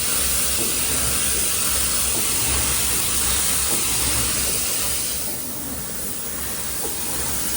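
Automatic bottle screen-printing machine running: a steady, loud hiss of machinery and air with a low pulsing hum underneath. The hiss thins out for a second or two past the middle.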